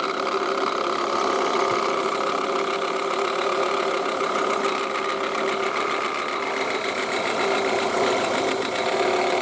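Toyota Estima engine idling, with a steady whirring noise from a worn alternator bearing.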